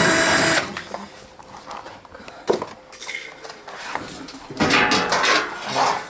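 Cordless drill-driver running briefly as it backs a screw out of a washing machine's rear panel. A single knock follows about two and a half seconds in, then a run of knocks and rattles near the end as the panel is taken off.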